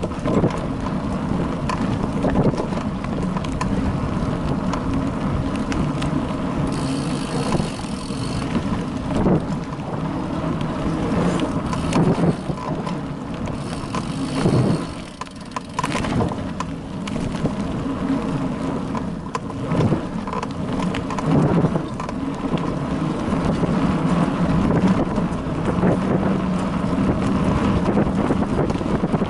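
Bicycle riding over a bumpy dirt forest trail, heard from a camera mounted on the bike: a constant rumble of tyres, frame vibration and wind on the microphone, with irregular knocks and rattles as the wheels hit bumps.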